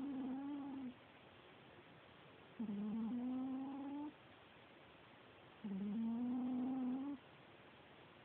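A sleeping cat snoring, one long pitched, whine-like snore with each breath: three in all, each lasting about a second and a half, roughly three seconds apart, the pitch steady or rising slightly through each one.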